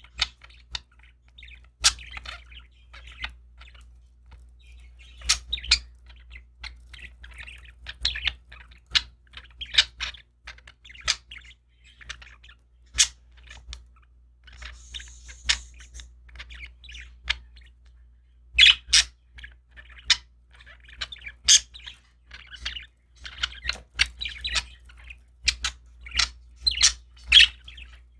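Pet budgerigars chirping and chattering in short, sharp calls at irregular intervals, busiest near the end, over a faint low steady hum.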